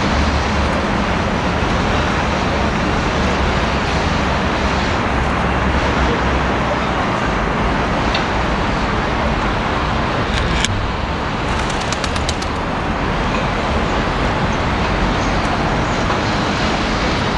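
Steady city traffic noise. A short run of faint ticks comes about two-thirds of the way in.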